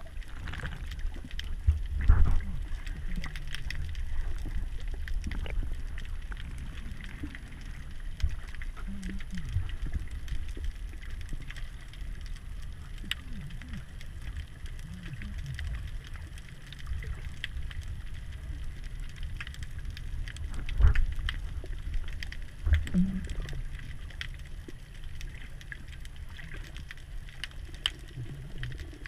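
Muffled underwater sound of water moving against an action camera swimming with a snorkeler: a steady low rumble with faint scattered clicks, and a few thumps, the loudest about two seconds in and about twenty-one seconds in.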